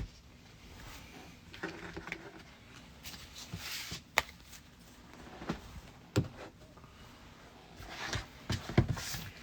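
Trading-card packs and boxes being handled on a table: rustling and crinkling with a few sharp taps and knocks, the loudest near the end.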